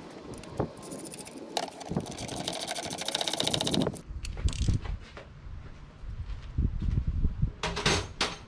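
Air ratchet running down the airbox mounting bolts: a fast, even rattle with an air hiss for about three seconds. Then a few sharp clicks and knocks of tools and plastic parts, most of them near the end.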